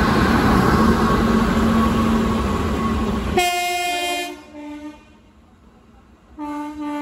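Twin WAG9 electric locomotives passing close, with loud, even running noise and a steady hum. About three and a half seconds in, the running noise drops away and a chord-like locomotive horn sounds for about a second, then a short toot, and another horn blast near the end.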